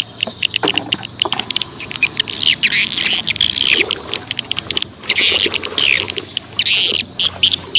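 Birds chirping and twittering, many quick high-pitched chirps and short sweeping calls overlapping with no let-up, likely mixed with insects.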